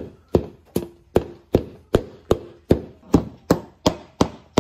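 A steady run of sharp, evenly spaced knocks, about two and a half per second, each with a brief low ring.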